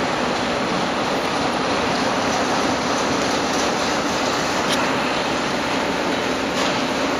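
Steady rushing noise at a constant level, with a few faint clicks near the end and no distinct hoofbeats.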